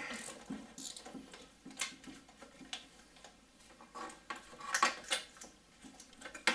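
Faint scattered clicks and light metallic rattles of a hand tool and wiring being worked loose at a car's starter motor, with a short run of louder clicks about five seconds in.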